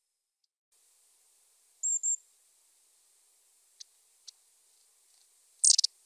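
Long-tailed tits calling: two short, very high thin notes about two seconds in, two faint ticks a little later, then a louder, rougher burst of high calls near the end.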